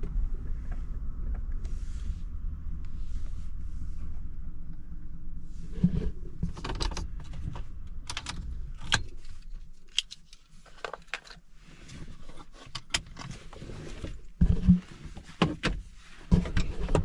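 Car engine idling with a steady low rumble, switched off about ten seconds in. After that come clicks, rattles and a few thumps of things being handled inside the car.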